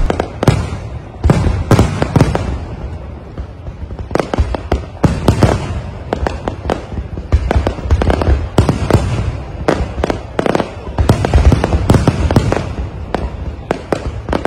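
Aerial fireworks shells bursting in quick, uneven succession: a continuous run of loud bangs and crackling, with heavier clusters of bursts at several points.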